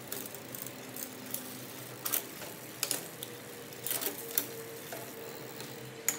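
Bicycle drivetrain turned by hand at the crank: the 9-speed chain runs over a triple chainring and through the front derailleur with a steady whir and scattered sharp clicks.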